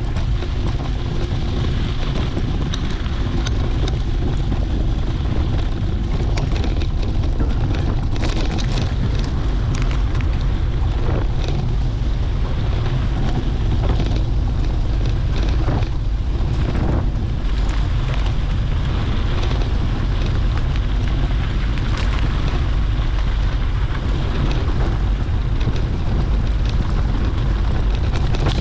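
Wind buffeting the microphone: a steady, heavy low rumble with hiss above it.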